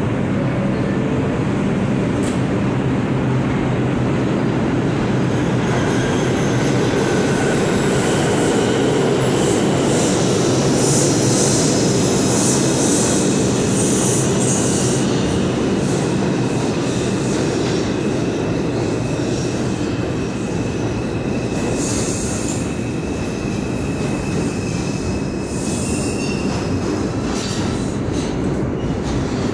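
New York City subway train moving through an underground station: a steady rumble of wheels on rail, with a high wheel squeal held through the middle and a few short bursts of hissing.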